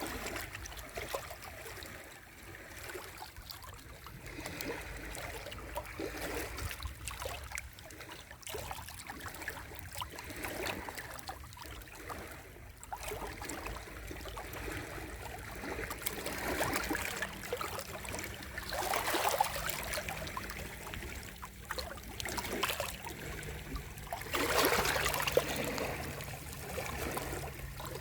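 Sea waves washing in, the water trickling and splashing in a continuous wash, with louder surges about two-thirds of the way in and again near the end.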